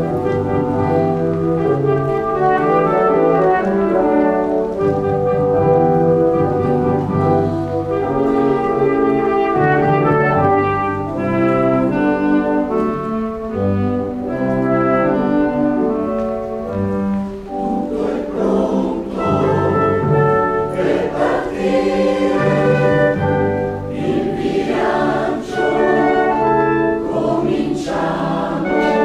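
Mixed choir with a small instrumental ensemble and keyboard performing live: a passage of held instrumental chords over a moving bass, with the choir's singing coming to the fore from a little past the middle.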